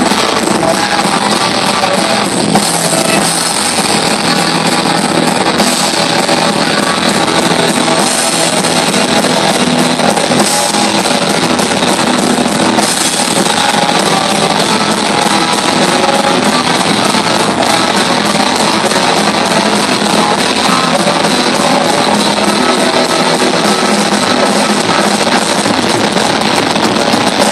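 Heavy metal band playing live: loud, dense electric guitar and drum kit, heard through a phone's microphone from the crowd in front of an outdoor stage.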